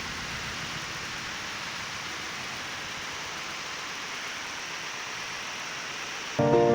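Steady rain falling, an even hiss with no separate drops standing out. Music comes back in just before the end.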